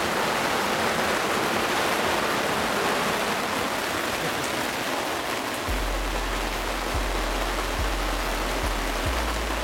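Heavy rain pouring steadily in a thunderstorm, a dense even hiss. A little past halfway a low steady rumble comes in under it, broken by brief gaps.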